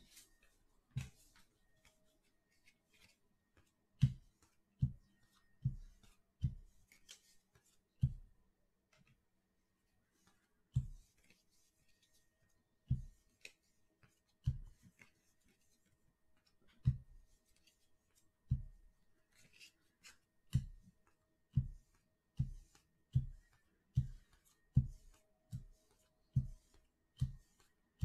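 A series of soft, dull taps, one every second or so at uneven spacing, each with a short click on top.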